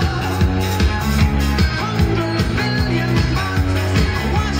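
Rock music with guitar and a steady beat, played back through a hi-fi system driven by a restored Audio Research SP-9 MKII tube preamplifier.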